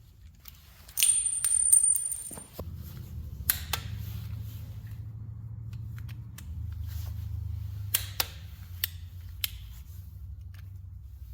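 Sharp metal clicks of tools and fasteners while screws are worked into an engine's rear cover plate, with a brief high-pitched whine about a second in. A steady low hum starts after about two and a half seconds and carries on under the clicks.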